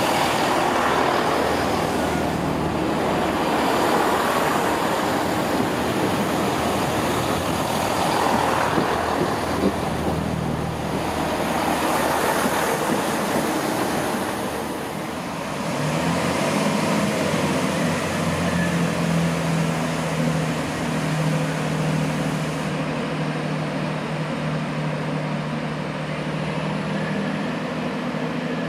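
A Chiltern diesel multiple unit pulling away from the platform, its engines and wheels rumbling as it goes. About halfway through, a steady low diesel engine hum sets in as a Chiltern Class 165 diesel unit approaches the platform.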